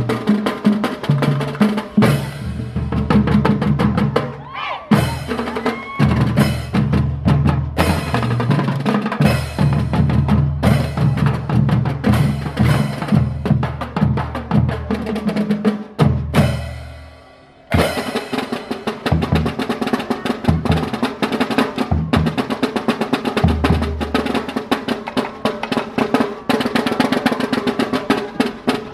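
Marching drum band of elementary-school children playing a fast percussion routine on snare drums, bass drums and hand cymbals, with dense rolls and rapid strokes. About sixteen seconds in, a loud crash hit rings out and fades for a second or so before the drumming starts again.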